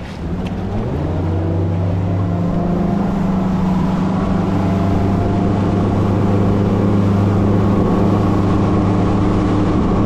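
A boat's outboard motor throttling up, its pitch rising over the first second or so, then running steadily at speed.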